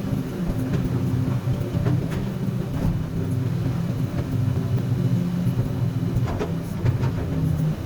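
Komatsu PC200 excavator's diesel engine running steadily, with a few faint knocks now and then.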